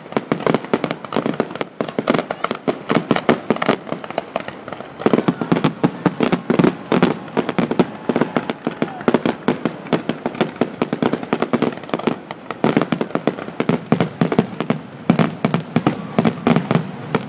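Fireworks exploding in rapid succession, many overlapping bangs and crackles a second, with only brief let-ups.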